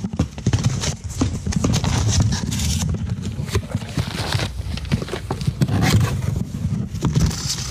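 Cardboard box of a Blu-ray player being handled and opened by hand: flaps pulled back and packaging shifted, giving a run of knocks, scrapes and rustles over a steady low rumble.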